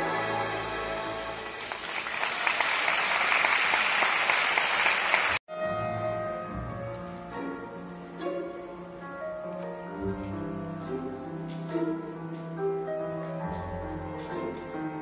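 Audience applause swells over the end of a piano-and-strings piece. It cuts off abruptly about five seconds in, and a grand piano then plays a slow melody over sustained notes from a small string ensemble of violins and cellos.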